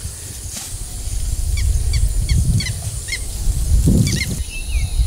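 A bird calling outdoors: a run of short, repeated high notes, about three a second, then a quick flurry of notes near the end, over a steady low rumble.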